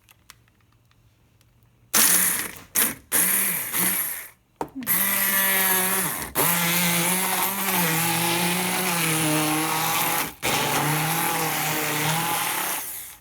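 Hand-held immersion blender puréeing basil, pistachios, Parmesan and olive oil into pesto. It starts with a few short pulses about two seconds in, then runs almost without a break, with two brief cut-outs, its motor pitch wavering.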